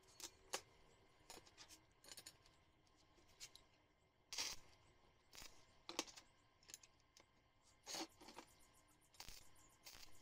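Faint, scattered clinks and taps of small steel plates and a square steel tube being set down and shifted into place on a steel worktable.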